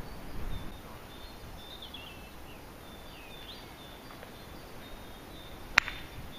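A golf club striking the ball off the tee: one sharp crack near the end, with birds chirping throughout.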